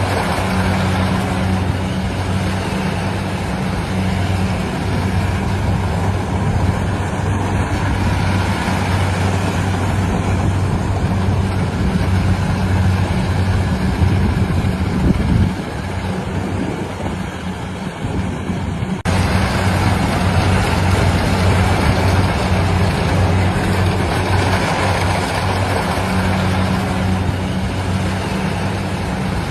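Harvesting machine's engine running steadily under load, a heavy drone with mechanical rattle. It dips briefly and jumps back abruptly about two-thirds of the way through.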